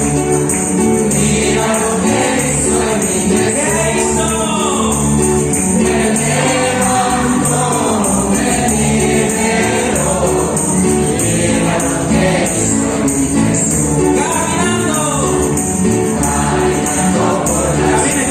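Upbeat Christian gospel-style song with a group singing and a bright tambourine-like jingle keeping the beat.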